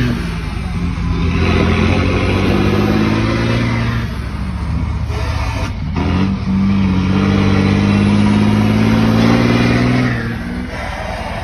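Iveco Tector truck's diesel engine pulling under load through a gear change: engine pitch steady, falling off about five seconds in, a brief break, then climbing and holding steady again. The sound drops in level near the end.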